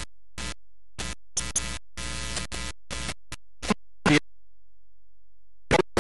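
Choppy, broken-up audio: short stretches of hiss and noise that cut in and out abruptly, several times a second, with a gap of over a second near the end.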